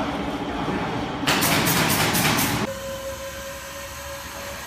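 Loud rushing noise for about a second and a half, then the electric lift motor of a wall-panel installation cart running with a steady whine as it tilts a lightweight wall panel upright.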